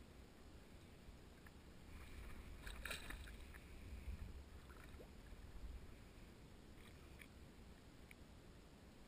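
Faint splashing of a hooked fish thrashing at the water's surface. The splashes are strongest in a short cluster about three seconds in, with a few smaller splashes after, over a low rumble.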